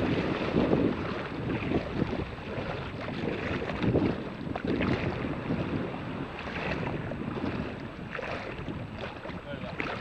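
Wind buffeting the microphone over small sea waves lapping, coming in uneven gusts with louder surges near the start and about four seconds in.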